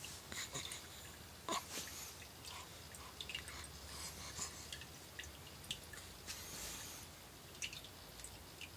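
Faint wet clicks and snuffling from a small pet, with one short, louder puff of breath about a second and a half in.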